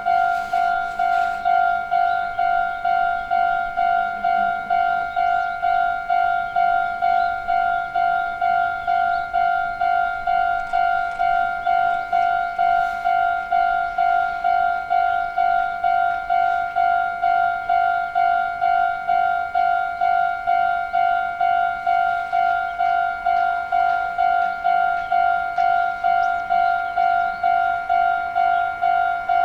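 Japanese level-crossing alarm ringing its electronic kan-kan tone, one pitched ding repeating at a fast, even rate while the crossing warns of an approaching train.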